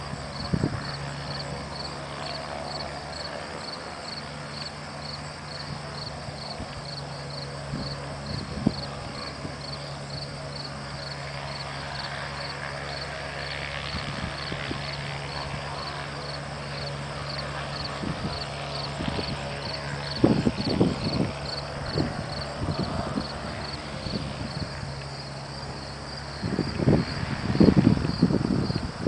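Distant gyroplane engine running at a steady pitch as it taxis, under crickets chirping in an even, rapid pulse. Low thumps come in bunches, loudest near the end.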